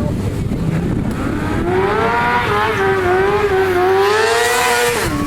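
Sport motorcycle engine held at high revs during a stunt: the revs climb about a second in, hold high while wavering up and down, rise a little more, then drop off sharply near the end.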